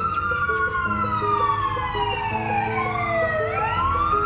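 Emergency vehicle sirens wailing, at least two of them overlapping, each sweeping up in pitch and then falling slowly, over and over: a response to a fire close by. Steady background music plays underneath.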